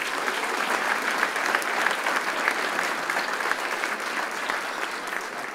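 Audience applauding: many people clapping together at once, easing off slightly near the end.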